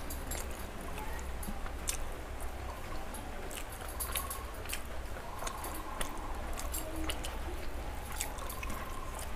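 Chewing and wet mouth smacks of someone eating soft paratha and curry by hand, picked up close on a clip-on microphone, with many short sharp clicks scattered throughout over a low steady hum.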